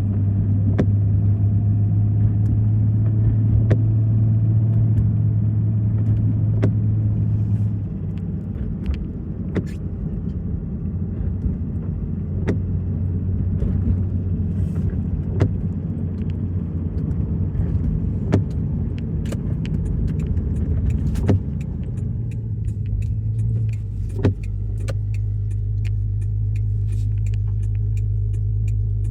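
Car on the move heard from inside: a steady low road-and-engine rumble, with scattered sharp ticks that come much faster in the last several seconds.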